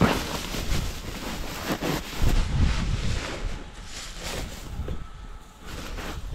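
Dry grass and reed bundles rustling and crackling as hands push and tie them onto a camouflage duck blind. Wind buffets the microphone throughout, with the strongest rumble about two seconds in.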